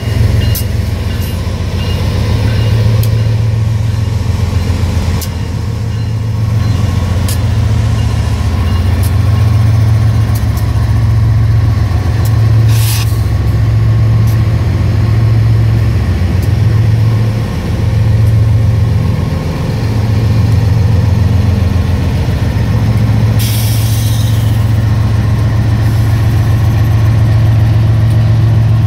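BNSF diesel-electric freight locomotives passing at close range, their engines a loud steady low drone, with occasional clicks from the wheels on the rails. A short hiss about 13 seconds in and a longer one around 23 seconds in.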